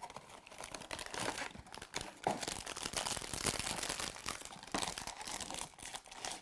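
Crinkly blind-box packaging for mystery toy figures being handled and torn open by hand: a dense, irregular run of crinkling and tearing.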